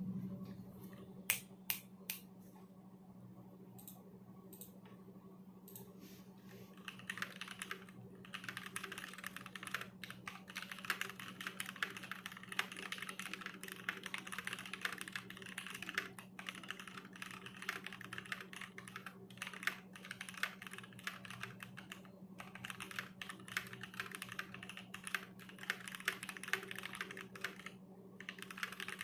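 Custom mechanical keyboard with lubed Gateron Ink Black linear switches in an aluminium plate and PBT keycaps being typed on. It starts with a few separate key presses, then about seven seconds in it becomes steady, fast typing.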